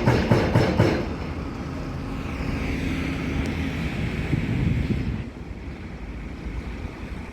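Large crawler excavator working: the heavy diesel engine and hydraulics run with a fast, even clanking for about the first second, then settle into a steadier running with a high whine. The sound drops in level a little after five seconds in.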